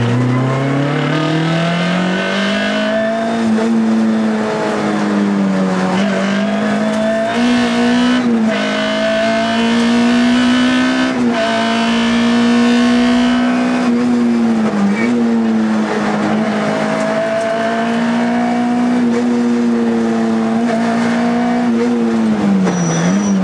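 Škoda Felicia Kit Car rally car's four-cylinder engine at full throttle, heard from inside the cockpit. The revs climb over the first couple of seconds and then stay high, with short dips at gear changes about six, eight, eleven and fifteen seconds in and again near the end.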